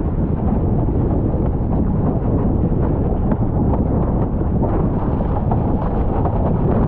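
Wind buffeting a muffled action-camera microphone while windsurfing at speed, a heavy steady rumble, with irregular knocks and slaps from the board and rig over choppy water.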